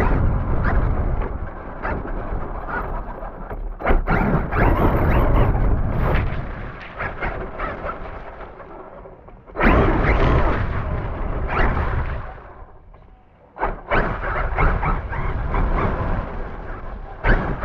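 Rumble and knocking of a radio-controlled car driving, picked up by a GoPro mounted on it, in loud stretches broken by two short lulls about half and three-quarters of the way through.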